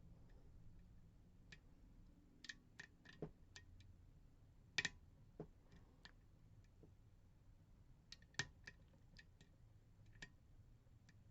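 Faint, scattered clicks of a lock pick and tension tool working the pins inside an Assa D12 lock cylinder, with two sharper clicks about five and eight and a half seconds in.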